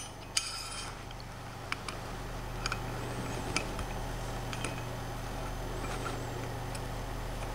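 Scattered small clicks and scrapes of metal panorama-head parts being handled as the upper panorama plate is fitted to an aluminium L-bracket with a red-handled hex key, over a low steady hum.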